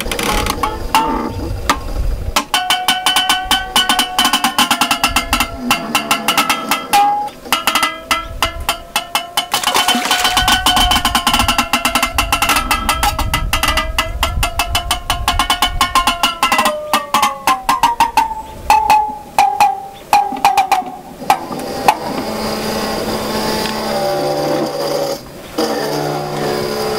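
Intonarumori-style noise instruments, wooden boxes with metal horns, worked by hand. A dense, rapid rattle runs over a buzzing pitched tone that wavers slowly and slides down in pitch past the middle. Near the end it gives way to lower, steadier droning tones.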